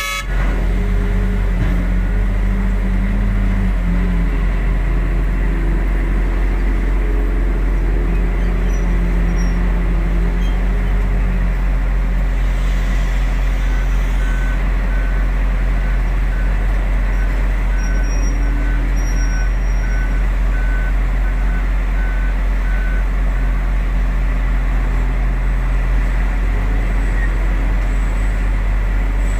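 Heavy diesel engines of an excavator and dump truck running, their low drone rising and falling as the machines work under load. About halfway in, a reversing alarm beeps steadily for roughly ten seconds.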